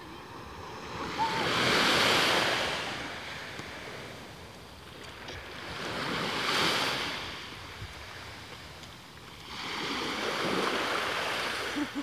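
Small sea waves breaking and washing up a sandy shore, in three swelling surges about four seconds apart.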